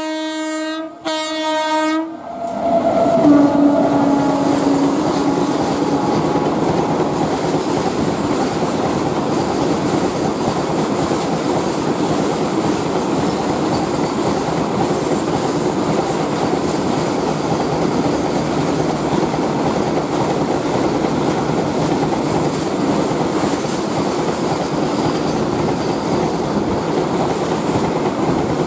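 WAG9 electric freight locomotive's horn sounding two short blasts, then a lower horn note as it comes through. After that comes the steady sound of a long freight train's wagons rolling past at speed.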